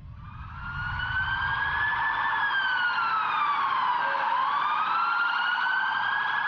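Emergency-vehicle siren in a slow wail, fading in at the start, rising, falling to a low about four seconds in, then rising again.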